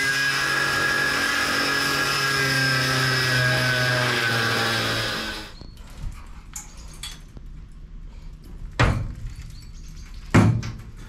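Angle grinder cutting through the van's sheet-steel partition wall, running steadily with a whine, then spinning down and stopping about five seconds in. After that come a few sharp knocks of metal being struck or shifted.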